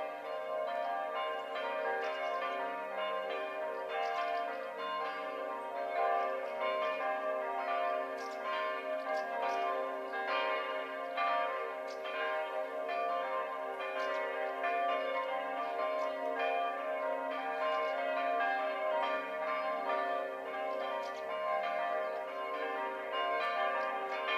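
Several church bells ringing together. Their strikes overlap without a break into a dense, continuous wash of bell tones.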